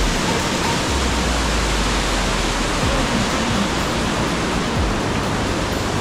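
Mountain stream rushing over rocks: a steady, loud rush of white water.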